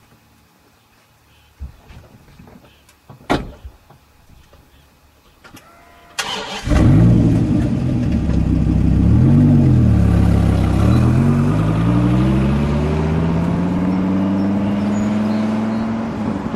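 Dodge Viper V10 engine starting. After a couple of sharp clicks, the starter whirs about six seconds in and the engine catches, is blipped up and down, then runs with its pitch climbing slowly and steadily.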